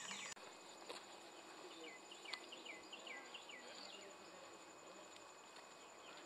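Faint wetland ambience: insects droning as a steady high tone, with a bird singing a quick run of about seven downslurred whistles about two seconds in.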